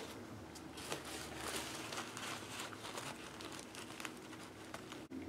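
Paper towel crinkling and rustling in the hands as it wipes up leaked black ink.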